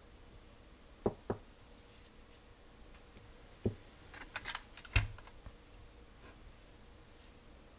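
Handling noise as batteries and the plastic air-pump housing are set down and picked up on a cardboard-covered bench: a few short knocks, two close together just after a second in, a run of small light clicks about halfway, and the loudest knock about five seconds in.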